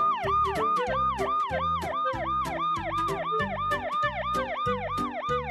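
A police-car siren in a fast yelp, its pitch sweeping up and down about four times a second, over background music with a steady beat.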